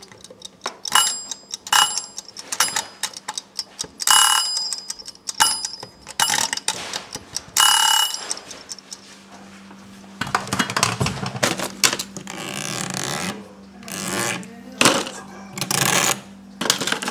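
Household sound effects: several short metallic ringing strikes, bell-like, through the first half, then a run of irregular rustling, scraping noises.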